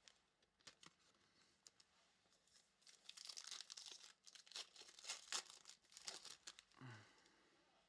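Faint crinkling and tearing of a trading card pack wrapper being opened, with light clicks of cards being handled. The sounds are densest in the middle few seconds.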